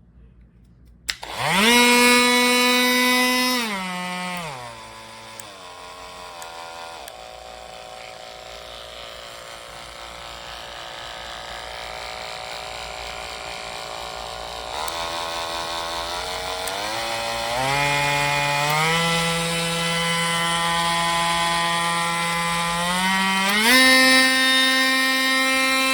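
Yunirvana corded oscillating multi-tool switched on with a click about a second in, its motor whining up to full speed. It is then stepped down through its speed settings to a low hum, and later brought back up in steps to full speed near the end.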